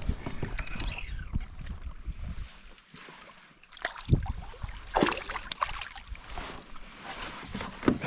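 Water splashing and irregular knocks against a fishing kayak as a hooked bass is landed. There is a quieter spell midway, then sharp splashes or knocks about four and five seconds in.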